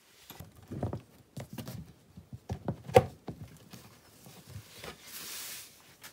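CPVC pipe manifold being handled and set into a wooden collector frame: irregular knocks, taps and rustles, with a sharp knock about three seconds in and a brief scraping hiss near the end.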